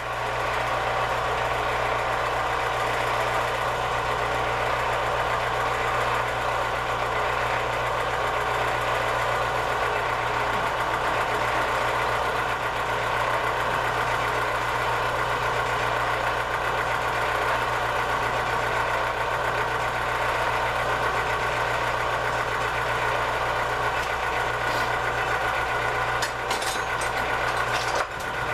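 Central Machinery 4x6 horizontal metal-cutting band saw running steadily just after being switched on: an even motor hum with the whirring whine of the blade and drive. A few light ticks near the end.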